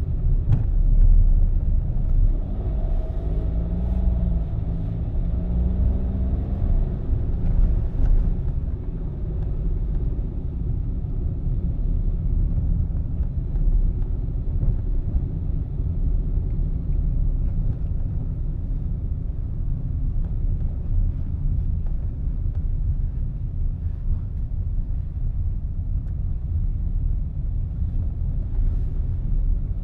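Car driving on an open road: a steady low rumble of engine and tyre noise, with the engine's note heard more plainly for the first several seconds.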